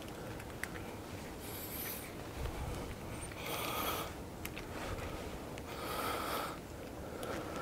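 A person breathing hard close to the microphone, one breath about every two seconds, while working hand tools. A few faint clicks come from the tool as T15 Torx screws are broken loose by hand on a G2 manual locking hub.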